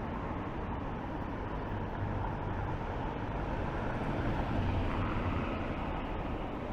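Town-centre road traffic: a steady rumble of passing vehicles, rising a little about two seconds in and easing off again near the end.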